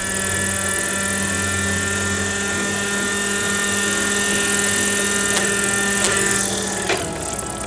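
Fuel-powered miniature radio-controlled helicopter running at high revs, a steady high engine whine with rotor hiss. A few sharp knocks sound near the end.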